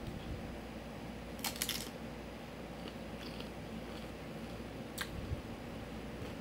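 Tortilla chips crunching as they are bitten and chewed: a quick cluster of crunches about a second and a half in and another sharp crunch near five seconds, with small clicks between, over a low steady hum.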